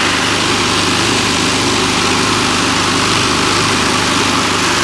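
Small vibratory bowl tumbler running, its load of media churning and rattling in the bowl over a steady electric-motor hum. Loud and even throughout.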